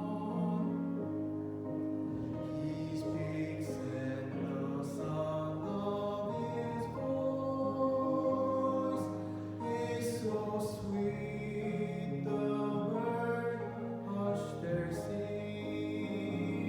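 Hymn music with singing: sustained sung and played notes moving from one chord to the next about every second.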